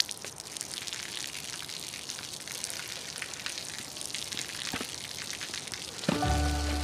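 Water falling from overhead in a dense patter of drops like rain, splashing onto the pavement and into a bucket. Background music with a deep bass comes in about six seconds in.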